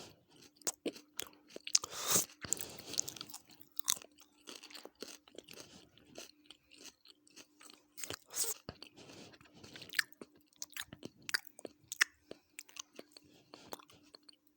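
A person chewing and crunching food close to the microphone, with many short wet mouth clicks and a few louder crunchy bites. A faint steady hum runs underneath.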